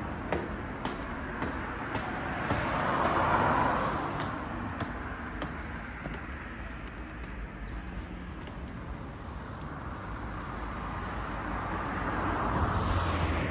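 Road traffic: cars passing on a street, with the sound swelling as one passes about three seconds in and another near the end.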